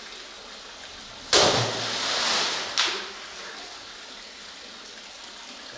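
Well water splashing as it is stirred up around the swimming rat snake and the rescuer's pole: a sudden splash a little over a second in that runs about a second and a half and ends in a sharp knock.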